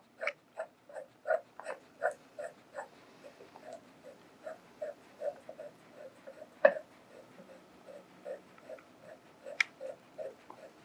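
Light metal ticks, about three a second, as a steel ultrasonic sonotrode is turned counterclockwise by hand to unscrew it from its transducer, with two sharper clicks about six and a half and nine and a half seconds in.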